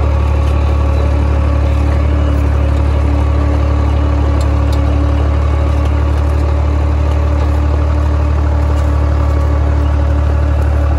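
Small vineyard tractor's engine running steadily under load, close up, as it pulls a soil-working implement through compacted ground between the vine rows.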